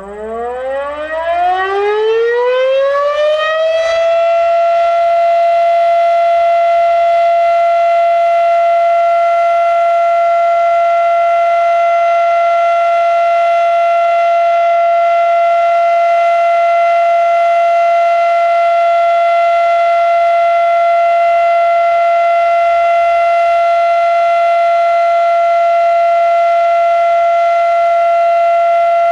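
Fedelcode Model 7 electromechanical outdoor warning siren winding up into a steady alert signal. Its pitch rises for about the first four seconds, then holds one loud, steady tone.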